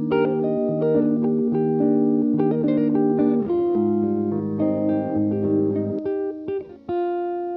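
Background music: a plucked guitar melody over a bass line, ending on a held note.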